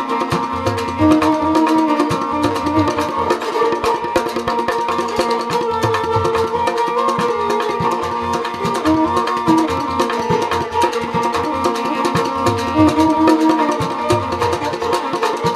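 Rajasthani folk instrumental music: a kamaicha plays a melody over a steady drone, with a morchang (jaw harp) and drums keeping a dense, even rhythm.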